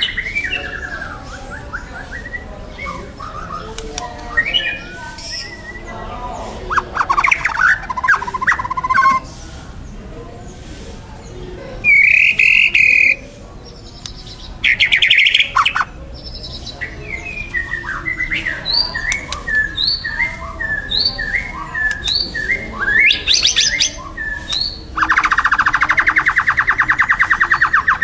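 White-rumped shama singing a long, varied song of whistled phrases, short repeated notes and harsh bursts, ending in a long rapid buzzy rattle about three seconds from the end.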